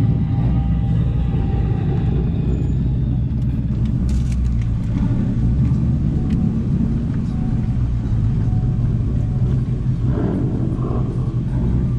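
Ford Mustang GT's 5.0 V8 engine idling with a steady, deep rumble.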